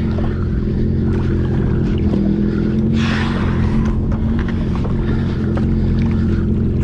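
Yamaha WaveRunner jet ski engine idling steadily, with a short rush of noise about three seconds in.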